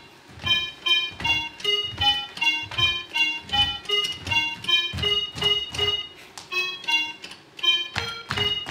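Upbeat instrumental music with an electronic-keyboard sound: short, bouncy pitched notes over a steady low beat about two a second.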